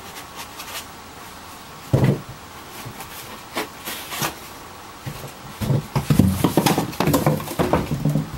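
A heavy desktop computer being lifted out of a cardboard shipping box. There is a sharp bump about two seconds in, then a run of knocks, scrapes and rustles as the case and its packing rub against the cardboard in the last few seconds.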